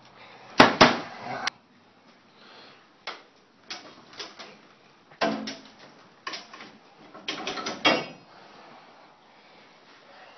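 A hand-cranked come-along's ratchet clicking and clattering in short irregular groups as it is worked to pull a tipped foundation wall back into plumb, the loudest burst about a second in and a quick run of clicks near the end.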